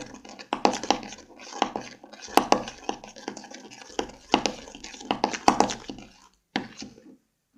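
A spoon scraping and clinking against a bowl as slime is stirred, with irregular knocks and scrapes that stop about six seconds in.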